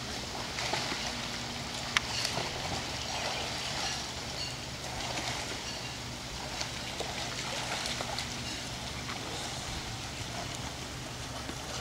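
Swimming pool water splashing and running steadily, over a low steady hum, with one sharp click about two seconds in.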